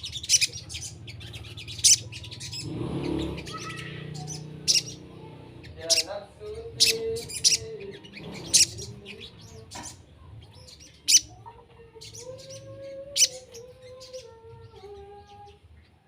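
Sogon birds calling: sharp, high chirps repeated every second or so, with lower, wavering whistled notes between them.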